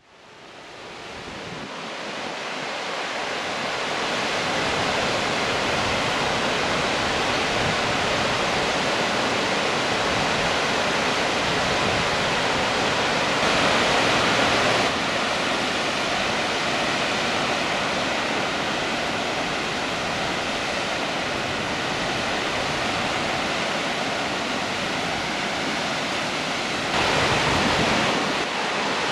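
Fall River's waterfall rushing over stepped rock ledges: a steady, full rushing hiss that fades in over the first few seconds and swells briefly louder twice.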